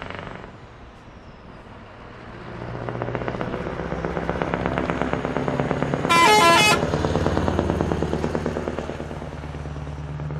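Scania R500 V8 truck with open exhaust pipes driving past, its deep engine note swelling as it nears and easing off as it pulls away. A short, loud blast of a horn about six seconds in, its pitch stepping between a few notes.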